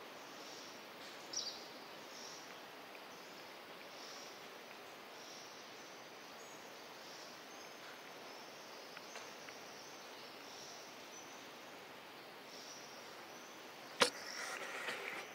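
Outdoor forest ambience: a steady faint hiss with soft high chirps repeating about once a second. A sharp click comes near the end, followed by rustling.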